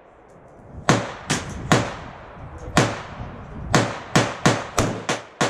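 Smith & Wesson M&P 5.56 NATO semi-automatic rifle firing about ten shots, the first about a second in and the shots coming faster near the end, each sharp crack trailing off in a short ring.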